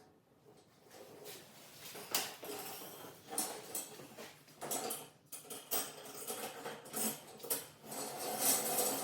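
Irregular light metallic clinks, taps and knocks of hardware being handled, coming more thickly toward the end.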